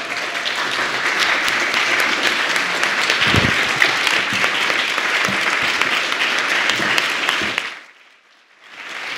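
Audience applauding steadily with dense clapping; the applause breaks off abruptly about eight seconds in and starts again just before the end.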